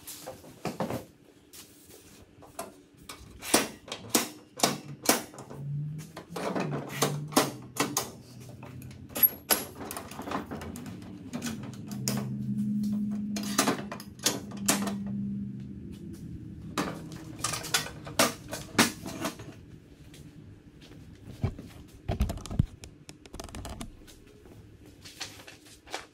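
Irregular metal clicks and clanks from a folding steel chop-saw stand being handled, unfolded and set up on its legs.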